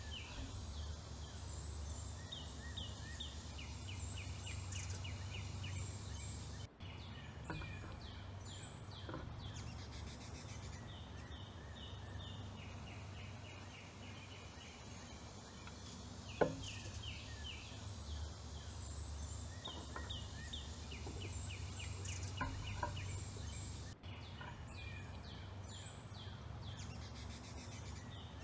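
Songbirds chirping in repeated quick series of short high notes over a steady low hum, with one sharp click about sixteen seconds in.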